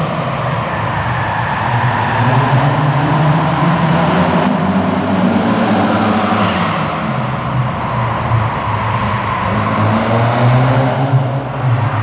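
A car's engine revving hard while being driven around a tight course, its pitch rising and falling again and again. The sound is heard across a large indoor hall.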